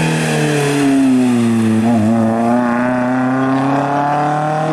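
Rally car's engine at high revs as the car passes. Its pitch sinks to a low point about two seconds in, then climbs steadily as the car accelerates away.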